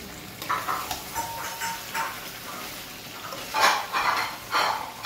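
Metal spatula stirring and scraping chicken fry against a thick-bottomed kadai, a series of scrapes and clinks over a light sizzle, the loudest strokes near the end. The chicken is being fried down until dry.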